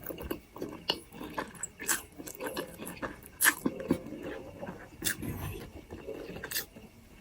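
Close-up mouth sounds of someone chewing a mouthful of instant Maggi noodles: irregular wet clicks and smacks over a soft low chewing sound.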